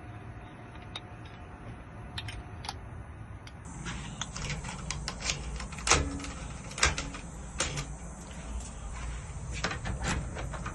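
Handling noise with a run of sharp clicks and knocks starting about four seconds in: a newly cut house key being tried in a door lock and the door handled.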